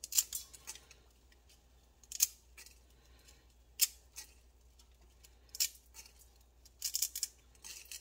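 Dry angel hair pasta being snapped by hand into short pieces over a stainless steel pot: crisp little snaps in small clusters every second or two.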